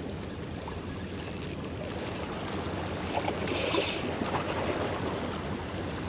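Sea water washing and foaming against the rocks of a breakwater, with wind on the microphone, and two short hissing surges, about a second and about three seconds in.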